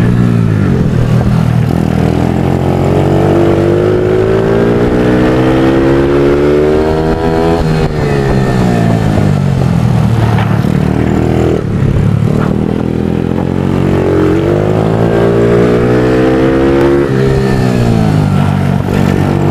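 Motard race bike's single-cylinder engine heard from on board, revving hard. Its pitch climbs for several seconds under acceleration, then falls sharply as the throttle shuts for corners, about three times, rising again near the end.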